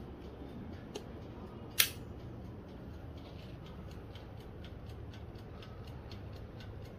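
Oven toaster's timer ticking evenly, several ticks a second, while the heating elements are on. One sharp click, the loudest sound, comes about two seconds in.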